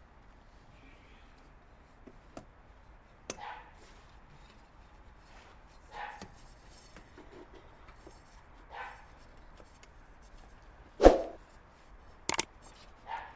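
A few separate sharp knocks and clicks over a faint background, spaced a few seconds apart, the loudest about eleven seconds in and a quick pair of clicks just after.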